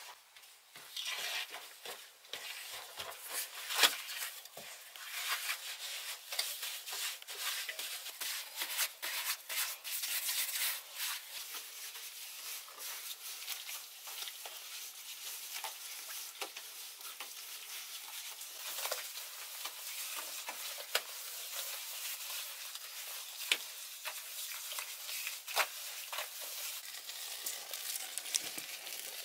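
Hand work on damp earthen clay walls: scraping, rustling and light tapping of a stick and hands on the clay, with scattered crackling clicks and one sharp knock about four seconds in.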